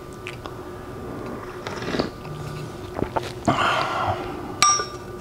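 Man sipping and breathing while drinking from a stainless-steel tumbler, over a steady low hum. There are a few light clicks, and about four and a half seconds in comes one short metallic clink with a brief ring.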